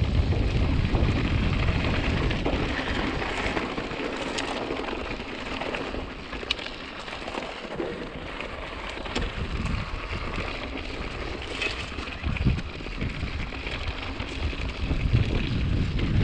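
Mountain bike ridden on a dirt trail: wind buffeting the camera's microphone as a steady rushing noise, with tyre noise and light clicks and rattles from the bike. The low wind rumble is heaviest at the start and again near the end, and eases in the middle.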